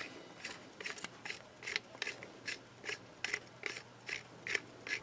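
Steel C-clamp locking pliers being worked by hand: a regular series of short metallic clicks and rasps, about two to three a second.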